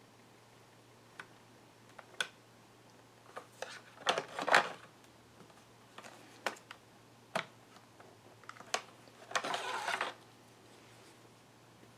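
Irregular clicks and knocks with two short scraping rustles, about four and nine and a half seconds in, from hands working on a laptop and its parts, over a faint steady hum.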